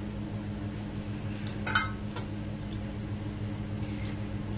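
Wooden rolling pin rolling out stuffed paratha dough on a marble board, with a few light clinks and clacks, the sharpest about two seconds in, over a steady low hum.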